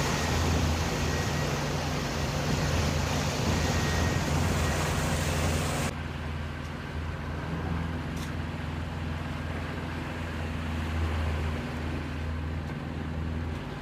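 A boat engine running steadily as a low hum, under a rush of wind and water noise. The higher rushing thins out suddenly about six seconds in, while the hum carries on.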